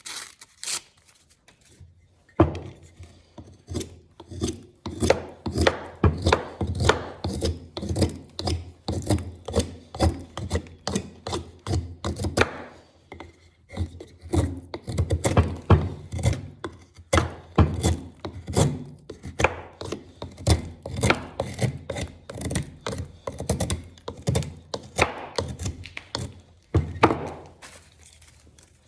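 A hand-made 1075 steel knife making quick repeated cutting strokes, two or three short knocks a second in long runs with brief pauses.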